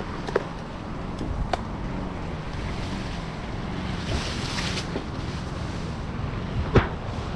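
An engine running steadily at a low idle, with a few sharp knocks over it, the loudest near the end.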